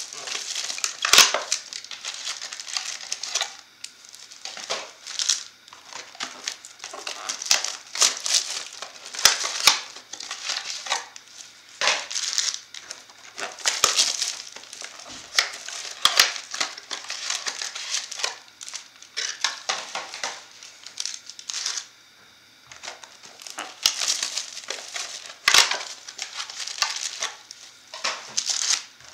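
Foil-wrapped Bowman Chrome baseball card packs crinkling and rustling as they are pulled from their hobby boxes and stacked, with irregular crackles and light taps of packs set down on the table.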